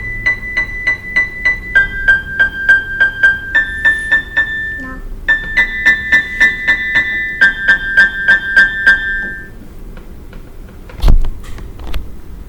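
Electronic keyboard playing a simple tune of quickly repeated single notes, about four a second, stepping between a few pitches. The notes stop about ten seconds in, and a single loud thump comes near the end.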